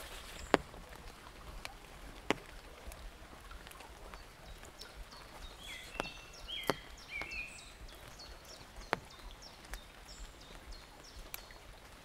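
Small forest birds chirping in short, quick falling notes, with one louder warbling call a little past the middle, over the faint steady trickle of a shallow woodland stream. A handful of sharp, isolated clicks come at irregular intervals.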